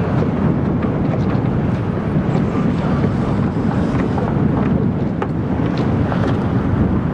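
Strong wind buffeting the microphone in a steady low rumble, with faint scattered ticks and splashes from the choppy water.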